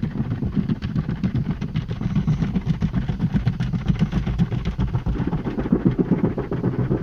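Automatic tunnel car wash heard from inside the car: a steady low mechanical rumble with many quick slaps and ticks of the cloth brush strips against the car body.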